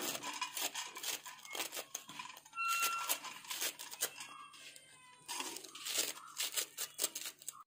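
A kitchen knife chopping ponnanganni cheera stems and leaves against a stainless steel plate, with quick, irregular crunchy cuts. A short, steady high tone sounds about three seconds in.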